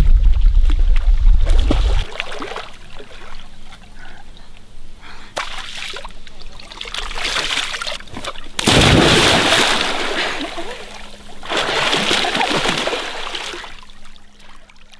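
Water splashing around a swimmer, with a heavy low rumble in the first two seconds; about halfway through, a big sudden splash as a person jumps feet-first off a log raft into a pond, followed by more splashing that fades near the end.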